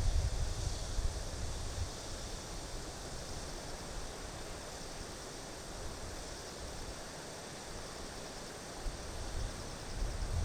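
Steady chirring of grass insects over the even rush of river water, with wind buffeting the microphone for the first second or so and again near the end.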